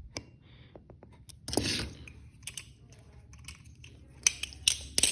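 Light metallic clicks and a short rasp about a second and a half in from a balisong trainer, a Switch trainer clone, being handled while its pivot screw is tightened to take out play; three sharper clicks come near the end.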